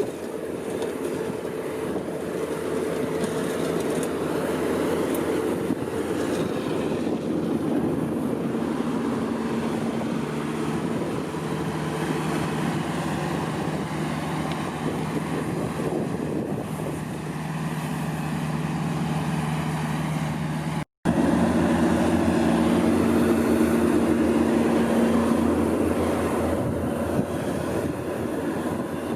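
Skid steer loaders' diesel engines running steadily under load while pushing snow, a continuous drone with scraping and track noise. The sound cuts out for an instant about 21 seconds in and comes back a little louder.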